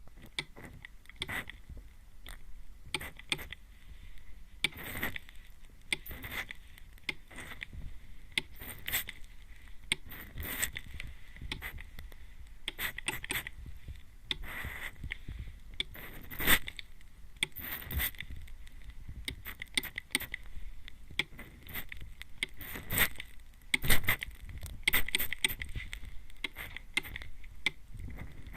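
Hand-pump mist spray bottle spritzed again and again right at the ear, each pump a short hiss, some coming in quick pairs or clusters.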